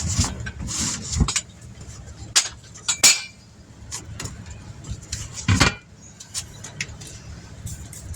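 Scattered metal clinks and knocks of tire-repair tools being handled at a wheel being dismounted, with a sharp clank about three seconds in and a heavier thump a little past halfway.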